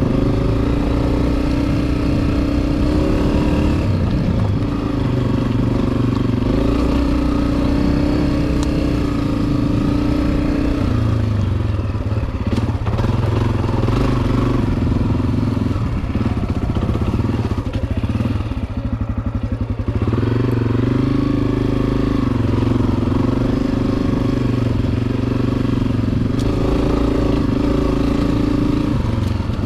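Honda CRF250F's single-cylinder four-stroke engine running under throttle on a dirt trail, its pitch shifting as the rider works the throttle. It eases off briefly about two-thirds of the way through, then picks up again.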